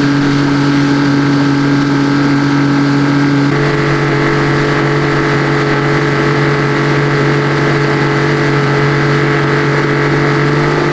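Yamaha 50 hp outboard motor running steadily on the water, its pitch stepping up about three and a half seconds in. The run is a water test for a whistling noise the customer complains of from the motor.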